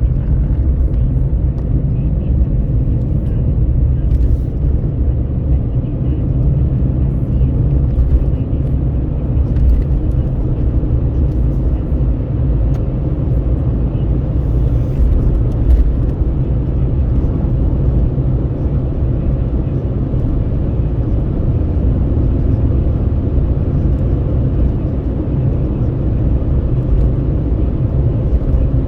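Steady low road rumble and engine drone heard from inside a moving vehicle cruising on a highway, with wind noise at the window.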